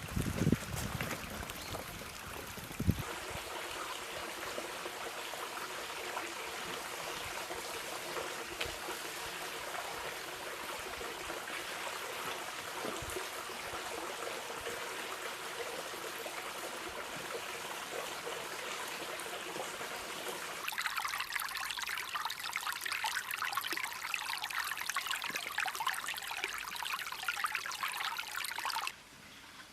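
Running river water: a steady rush of flowing stream water, with a few knocks in the first seconds. About two-thirds of the way through the rush turns brighter and hissier, then drops off sharply near the end.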